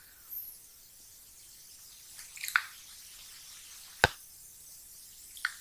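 A few soft, brief clicks and smacks over quiet room tone, one of them a short drip-like sound that falls in pitch. The sharpest click comes about four seconds in.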